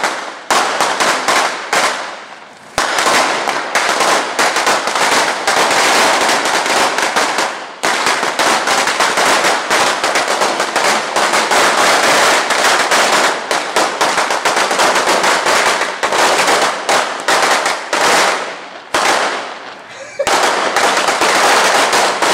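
Firecracker strings going off in a dense, rapid crackle of bangs, with a couple of short lulls, one about two seconds in and one near the end.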